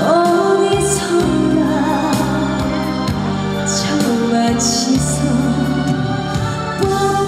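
A live trot song: a female singer holds long, wavering notes over a backing accompaniment.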